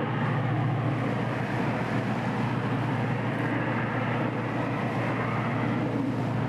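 Steady low engine rumble and rushing wind and water of a yacht running under way, unchanging throughout.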